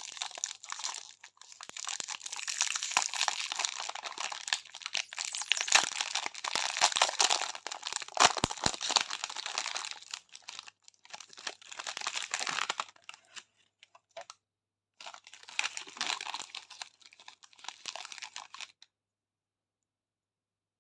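Plastic sweet wrappers crinkling, crackling and tearing as they are unwrapped by hand, in a long run, a short pause, then a second shorter run.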